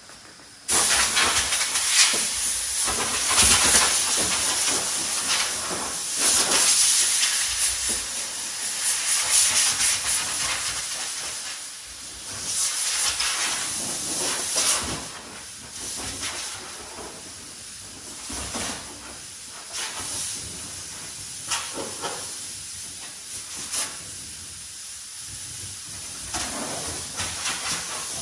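Pressure washer jet spraying a car body: a loud hiss that starts suddenly about a second in and swells and fades as the jet is swept across the panels.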